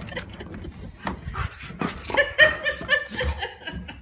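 A person laughing in a quick run of short, high-pitched bursts about two seconds in, after a stretch of scattered knocks and handling noise.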